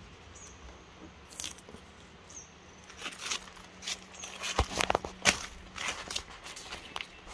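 Scattered scuffs and clicks of footsteps on gritty concrete and of the camera being handled, busiest about halfway through. A faint steady hum sets in a couple of seconds in.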